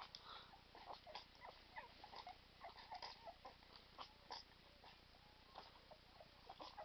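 English bull terrier puppies eating wet kibble: faint, irregular wet smacking and clicking, with small squeaks among it.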